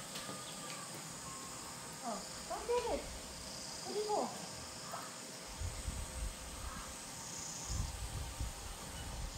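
Steady high insect buzz, with a few short rising-and-falling calls about two to four seconds in. From about halfway through, a low uneven rumble joins it.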